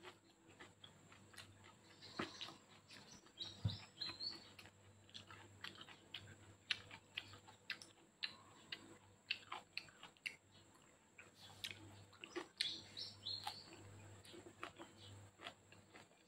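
Close-up, wet chewing and lip-smacking clicks of someone eating spaghetti wrapped in raw leafy greens. A bird chirps briefly twice, about three seconds in and again near twelve seconds.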